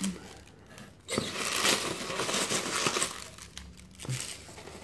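Polystyrene packing peanuts rustling and crunching as hands rummage through them in a shipping box. The rustling is loudest from about a second in until past the middle, then dies down to light rustles.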